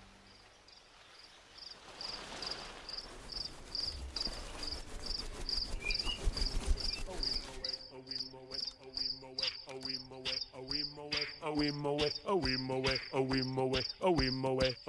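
Cricket-like chirping, a regular high chirp about twice a second. Music with a steady beat fades in about halfway through and carries on under the chirps.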